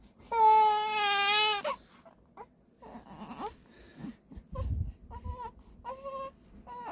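Newborn baby crying: one long, loud wail about half a second in, then quieter fussing and three short whimpering cries near the end, with a low bump a little past the middle.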